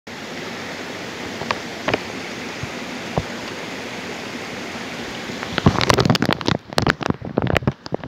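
A steady rushing noise with a few sharp clicks, then a dense run of loud crackles and knocks from about five and a half seconds in.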